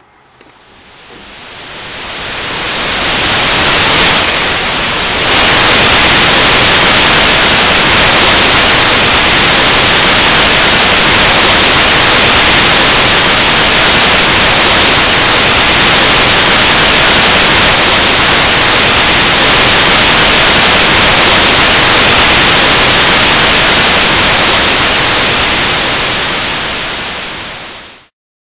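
Harsh static noise, a loud hiss, used as noise music. It swells up over the first few seconds, holds steady, then thins near the end and cuts off abruptly.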